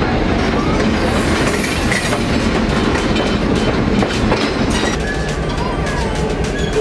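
Passenger train rolling along the track: a steady rumble and rattle of the cars, with wheels clicking over the rail joints.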